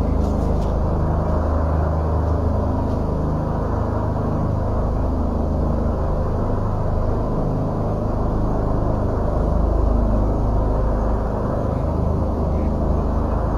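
A loud, steady low rumbling drone with faint humming tones in it, of the kind circulated as 'strange sounds from the sky'.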